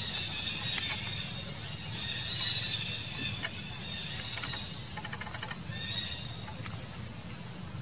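Macaque giving several high, drawn-out squealing calls, with a quick run of clicks just past the middle, over a steady low hum.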